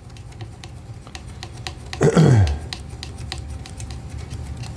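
Small clicks and ticks of hands handling an ignition coil and threading its mounting bolt by hand on a Briggs & Stratton 190cc engine. About two seconds in, a short voice sound slides down in pitch.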